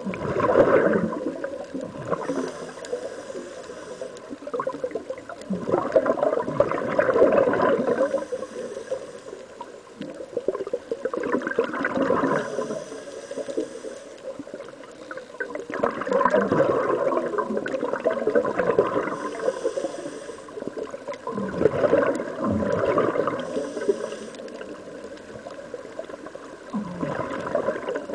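Scuba regulator breathing underwater: exhaled air bubbles out in long surges about every five seconds, with a fainter hiss of each inhaled breath between them.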